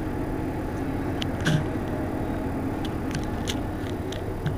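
Mercedes-Benz Citaro facelift city bus engine idling steadily, with a few short, sharp clicks scattered through it.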